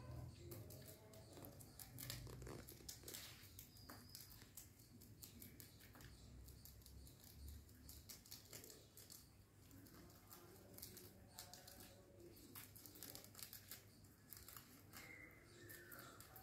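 Faint, quick clicks and rustles of rabbits tearing and chewing fresh leaves.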